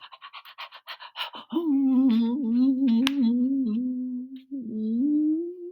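A person humming in a low, wavering voice with small pitch wobbles, after a quick run of breathy puffs at about ten a second; the humming breaks briefly and resumes, rising slightly near the end.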